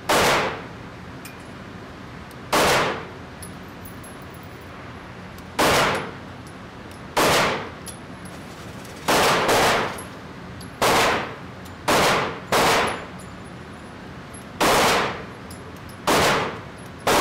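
Glock 19 9mm pistol firing single shots, about a dozen, spaced one to three seconds apart with two quick pairs near the middle. Each shot has a short echo off the walls of the indoor range.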